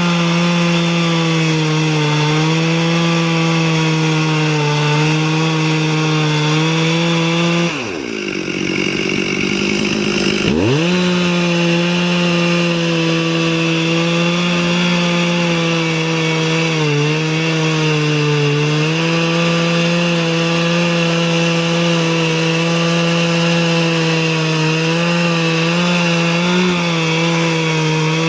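Stihl MS 440 two-stroke chainsaw running flat out, ripping lengthwise through a southern yellow pine log in an Alaskan chainsaw mill. About eight seconds in, the engine speed drops away and the cutting noise fades. A couple of seconds later it revs sharply back up and carries on sawing steadily.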